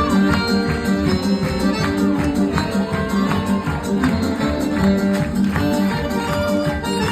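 Music with a steady beat and a melody line that slides up and down in pitch.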